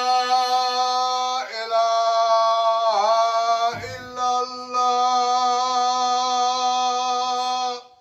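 A man's voice chanting in Arabic in a mosque, in long, steady held notes. The pitch wavers and dips about three seconds in, with a short break a little before four seconds, and the chanting stops abruptly near the end.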